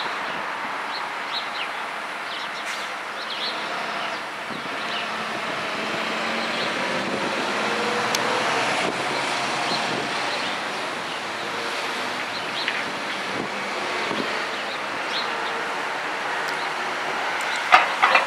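Steady traffic noise, swelling a little around the middle, with a couple of sharp clicks near the end.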